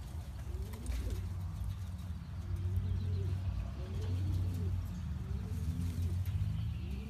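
Domestic pigeon cooing: a run of low, rising-and-falling coos, about one a second, over a steady low rumble.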